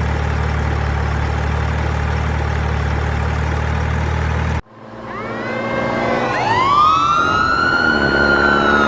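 A heavy engine runs with a steady low hum, then cuts off abruptly about four and a half seconds in. A siren then winds up into a rising and slowly falling wail.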